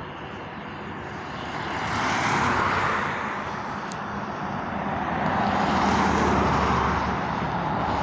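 Highway traffic passing close by: tyre and engine noise swells as one vehicle goes past about two seconds in and another, heavier one around six seconds in.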